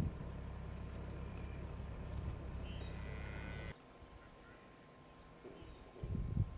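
Outdoor bush ambience: faint high chirps over a steady low rumble that cuts off suddenly a little past halfway, with low bursts of sound near the end.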